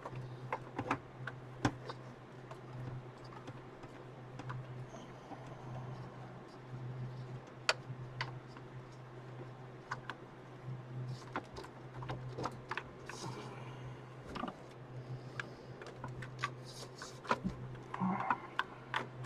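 Scattered light clicks and taps of hands working loose the plastic push-pin mounting clips of a Cooler Master CPU heatsink on an old PC motherboard, over a steady low hum.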